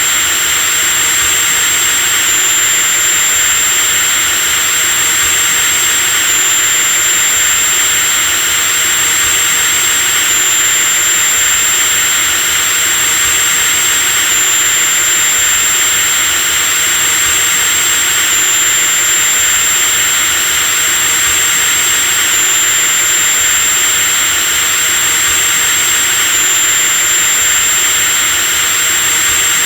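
Electric drill motor running continuously at steady speed, with a high-pitched whine over a hissing whir. The whine shifts slightly in pitch about every four seconds.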